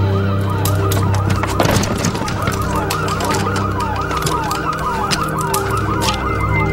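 Electronic siren wailing in rapid falling sweeps, about three a second, over a steady low drone, with scattered crackles.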